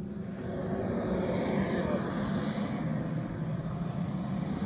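JetCat P250-Pro-S turbine of a large model jet running, a steady rush with a thin high whine that drifts in pitch. The rushing noise swells and fades about two seconds in.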